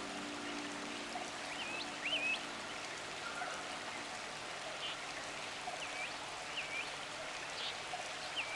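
Nature-sounds soundtrack: a flowing stream with small birds chirping in short calls, a few at a time, every second or so. A soft sustained music chord fades out in the first few seconds.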